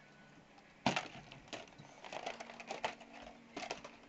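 A dog chewing a flower pot in its jaws: irregular crunching and sharp cracking snaps, beginning about a second in.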